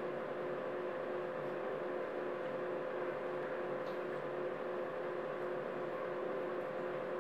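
A steady background hum with a constant hiss. One tone holds steady while a lower one pulses on and off. One faint tick comes about four seconds in.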